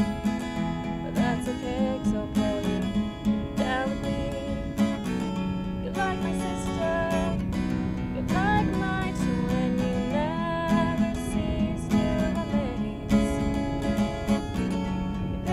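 Steel-string acoustic guitar strummed in a steady rhythm, accompanying a song.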